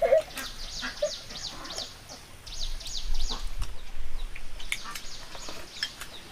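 A kitten meows briefly at the start, then rapid high-pitched bird chirps repeat over and over.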